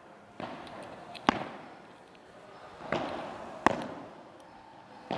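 Padel balls being hit with padel rackets and bouncing on the court during a rally drill: about five sharp knocks spaced irregularly, each with a short echoing tail.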